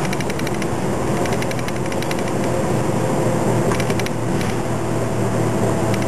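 City bus engine running steadily under way, with road noise, heard from inside the cabin. Short spells of fast ticking come every couple of seconds.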